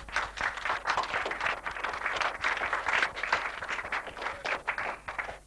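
A small audience applauding, a dense run of irregular hand claps that stops suddenly near the end.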